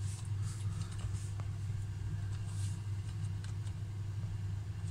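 A few faint computer-keyboard keystrokes as a password is typed, scattered over a steady low hum.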